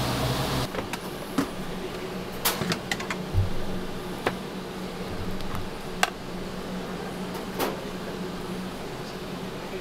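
A steady rush of kitchen noise cuts off under a second in. Then come scattered clicks and light knocks as the lid of a stainless steel commercial rice warmer is opened and a rice paddle scoops steamed rice into a rectangular box, over a steady low appliance hum.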